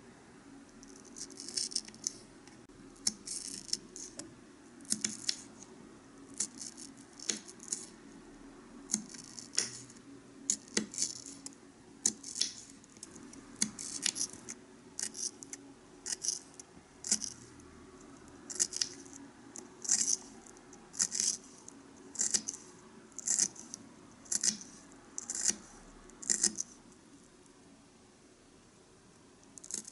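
Small knife cutting a tiny onion on a wooden cutting board: short, crisp cuts that tick against the board, coming in small clusters about once a second, then stopping a few seconds before the end.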